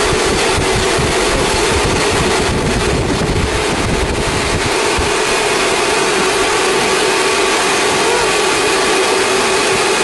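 Automatic vacuum forming machine running: a loud, steady mechanical hiss and hum with a constant tone beneath it.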